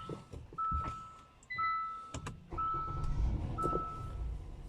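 Car's warning chime ringing repeatedly, one fading ding about every second, with a brief higher beep near the middle. In the second half a low electric motor hum swells and then eases off.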